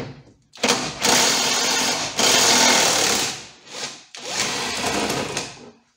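Power impact wrench on a long 19 mm socket, hammering to loosen a rear suspension-arm bolt. It runs in two goes: about three seconds, then a short pause and about another second and a half.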